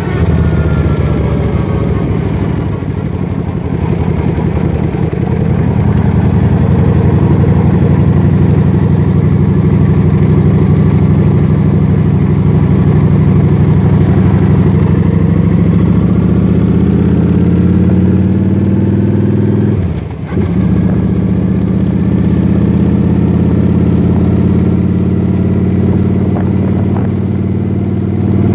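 Vehicle engine running while driving, its pitch falling at first, then rising as it speeds up, with a brief dip about twenty seconds in before it settles into steady cruising.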